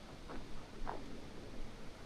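Footsteps on a hillside path: two soft steps over a steady low background hiss.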